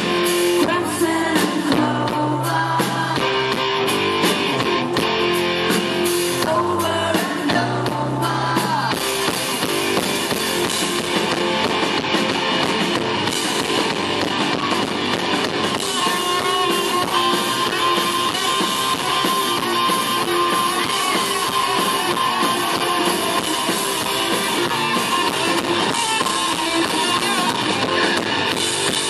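Live rock band playing electric guitars and a drum kit.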